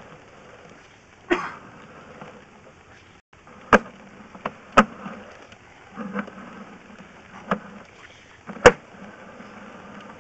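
Sewer inspection camera being pushed through a scaled, corroded cast iron sewer pipe: about six sharp knocks at irregular intervals as the camera and push cable bump over the scale, the loudest near the end, over a low steady hum.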